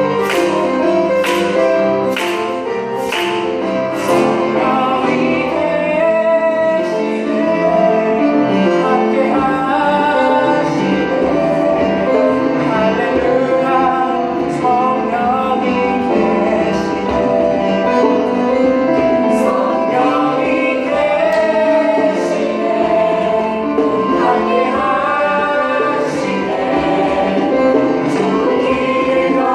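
A small group singing a Korean praise song in unison over live instrumental accompaniment. The singers clap in time through the first few seconds, and a few more claps come later.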